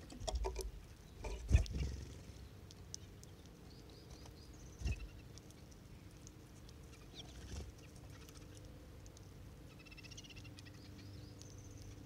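Small finches feeding on scattered seed close by: soft high chirps and twitters with faint ticks, and a few short low thumps and flutters, the loudest about a second and a half in and another near five seconds.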